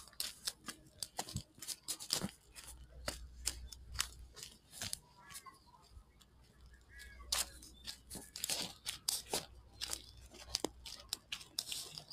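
Footsteps crunching on a gravel and dirt yard, an irregular run of sharp crunches at walking pace that thins out briefly near the middle.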